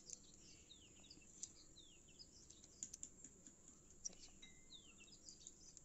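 Near silence with faint birds chirping in the background, many short descending chirps, and a few soft clicks from fingers picking the thin skin off a roasted cashew kernel.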